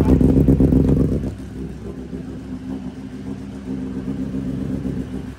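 An engine running steadily at one constant pitch, not revving; it is loud for about the first second, then drops to a lower level and keeps running.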